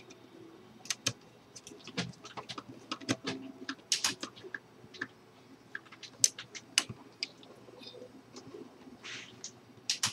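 Irregular clicks, taps and light scrapes of hand work on small parts and wiring.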